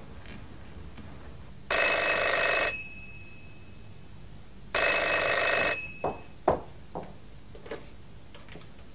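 Landline telephone ringing twice, each ring about a second long and about three seconds apart: an incoming call. A few short knocks follow.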